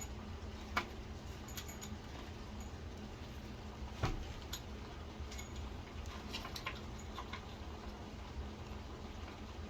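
Scattered small clicks and taps of metal mortise-lock parts being handled and fitted back together, with a sharper knock about four seconds in, over a low steady hum.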